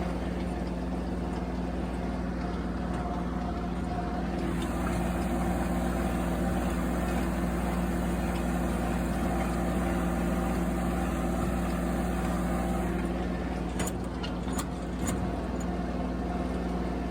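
An engine idling steadily, with a few sharp clicks near the end.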